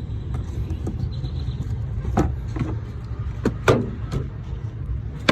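Several sharp plastic knocks and clicks from handling the engine air filter and its airbox, over a steady low rumble.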